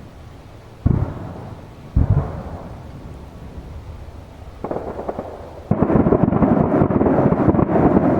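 Aerial fireworks shells bursting. Two sharp booms come about a second apart, each followed by a rolling rumble. From about five and a half seconds in, a dense barrage of rapid, overlapping bursts sets in and keeps going.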